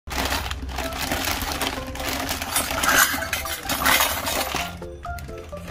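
Plastic bags rustling while small toy kitchen pieces, miniature steel utensils and plastic parts, clink and clatter together as they are tipped out, loudest about three and four seconds in. A few notes of music come in near the end.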